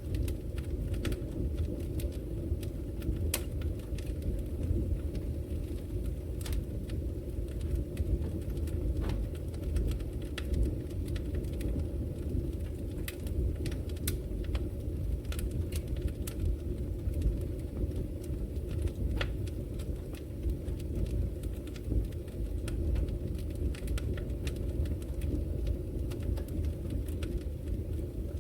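Wood fire burning in a brick fireplace: a steady low rumble of flames with irregular sharp crackles and pops, several in quick succession at times.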